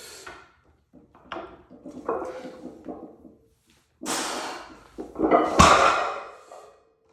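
Loaded barbell and iron plates clanking and knocking during a heavy deadlift, with one light ringing tone from the plates and a short hiss about four seconds in. The loudest sound is a heavy thud of the bar meeting the floor, a little before five seconds.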